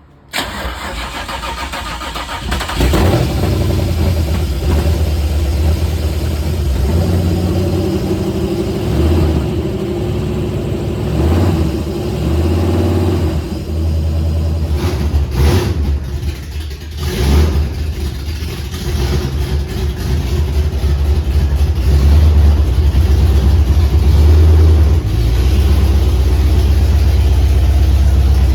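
Rebuilt stroker Holden V8 of a VN Commodore SV LE wagon being started: it turns over and catches about three seconds in, then runs. It is revved a little around halfway, then settles into a steady idle near the end.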